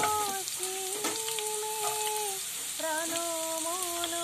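Chopped onion sizzling in hot oil in a kadai, freshly added and starting to fry. A wavering pitched hum, with short breaks, sounds alongside the sizzle.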